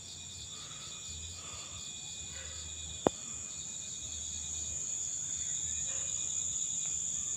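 Dusk chorus of night insects, a steady high-pitched trilling that slowly grows louder, with one sharp click about three seconds in.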